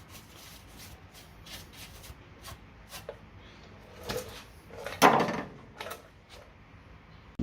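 Scattered light clicks and knocks of tools and objects being handled in a workshop, with one louder clunk and scrape about five seconds in.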